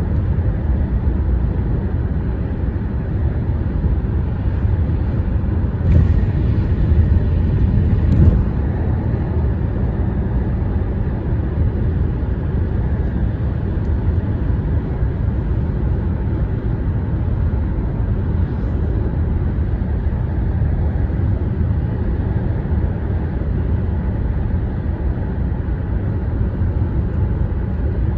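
Steady low rumble of road traffic on a bridge, with two louder thumps about six seconds in and again two seconds later.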